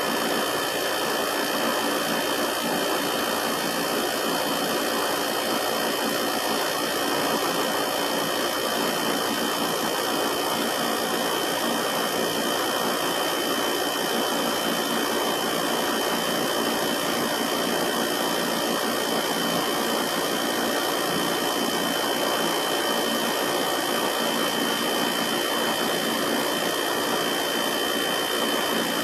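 Air conditioner's rotary compressor and condenser fan running steadily while refrigerant is charged through a manifold gauge: an even mechanical hum and whir with a constant high whine.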